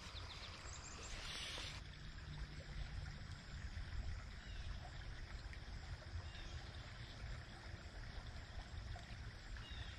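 Faint ambience of a small stream, with gentle running water over a steady low rumble. A short burst of hiss comes about a second in.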